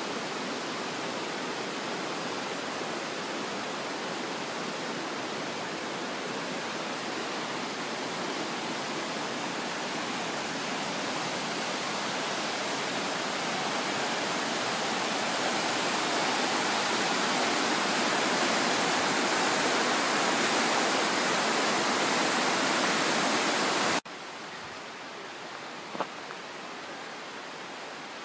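River rapids rushing, a steady roar of water that slowly grows louder, then drops suddenly to a quieter rush near the end, with one brief click after it.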